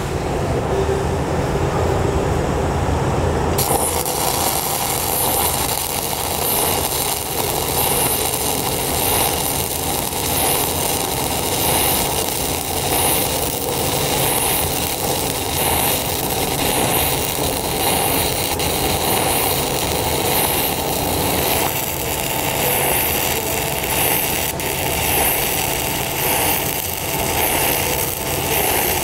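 Stick-welding arc from a 6010 electrode on DC positive, crackling and sizzling steadily once the arc is struck about three and a half seconds in. The crackle swells and eases in a regular rhythm as the electrode is weaved left and right and whipped up the plate in a vertical-up root pass.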